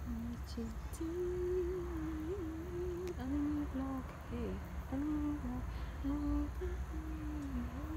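A woman humming a slow, wordless tune in held notes that slide from one pitch to the next, over a low steady rumble.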